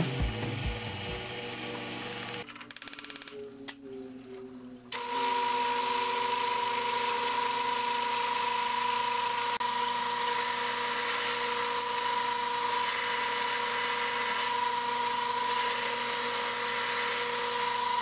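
Enco milling machine running, its end mill cutting a metal block with a steady high whine over a cutting hiss, starting about five seconds in after a quieter stretch with a few light clicks.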